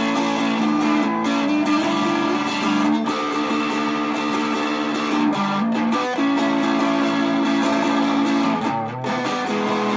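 Guitar music, with held chords that change every second or two and a brief dip just before the last chord.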